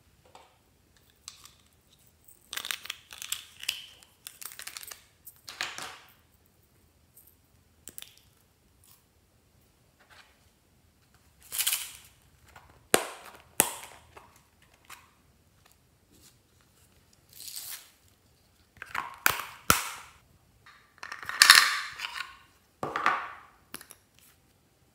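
Small plastic containers handled and snapped open over a dish of slime, with sharp plastic clicks and snaps and bursts of rustling. The snaps come about halfway through and again about three quarters of the way through.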